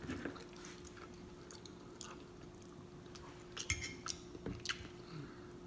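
Close-miked chewing and lip smacking while eating: scattered short, wet mouth clicks, busiest about three and a half to five seconds in, over a faint steady hum.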